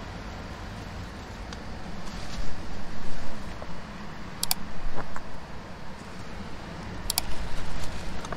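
Steady low rumble of wind and surf on the coast, with irregular rustling and crackle from about two seconds in as a small kindling fire is built up and catches. Two short, bright clicks sound about four and a half and seven seconds in.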